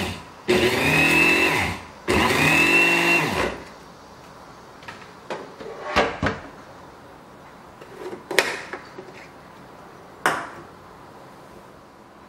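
Bamix hand blender's motor running in two pulses of about a second and a half, each whining up to speed and winding down, as it grinds black sesame seeds in its plastic chopper bowl. Then a few short plastic clicks and knocks as the blender is lifted off the bowl and the lid is handled.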